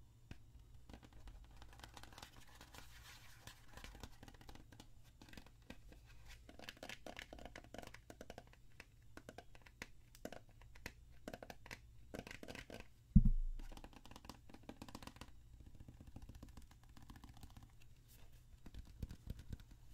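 Close-up ASMR handling sounds: fingers tapping and scratching on a small bottle near the microphone, in irregular clusters of light taps and scrapes. About two-thirds of the way through there is a single loud thump.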